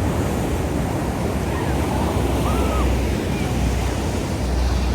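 Ocean surf washing steadily, with wind buffeting the microphone in low rumbles that swell and ease.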